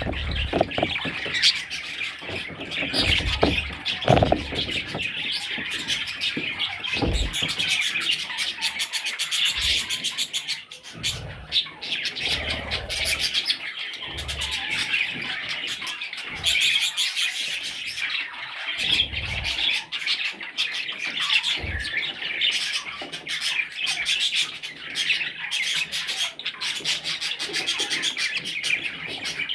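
Budgerigar chicks chirping and chattering nonstop in a dense high twitter, with a few soft low thumps now and then.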